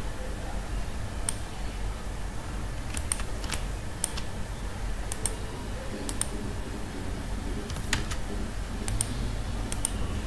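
Computer mouse clicking: single clicks and quick double clicks at irregular intervals of roughly a second, as pen-tool anchor points are placed, over a low steady hum.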